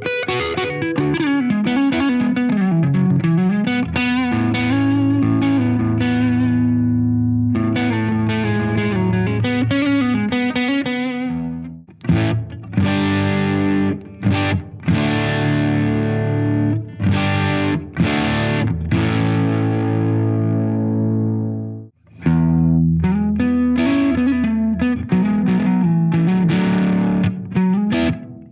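Gibson Les Paul Standard electric guitar played through a distorted amp on its neck pickup: sustained notes with bends, a run of short stabbed chords in the middle and a brief stop before the bent lead lines resume.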